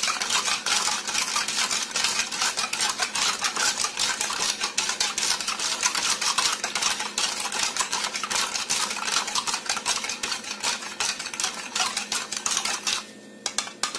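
A spoon stirring milk mixed with agar-agar powder in a plastic measuring jug: rapid, continuous clicking and scraping against the jug's sides, which stops about a second before the end.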